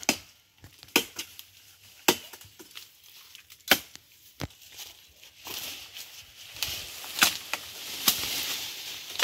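Tree branches being chopped and snapped off during pruning: about half a dozen sharp cracks spaced out, with leafy branches rustling and swishing from about halfway through.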